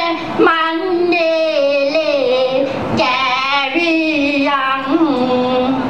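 A woman's voice singing solo into a microphone, in long held notes that waver and slide between pitches, amplified through the hall's speakers.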